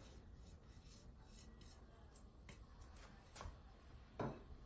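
Near silence: faint room tone with a few soft clicks, the clearest two near the end.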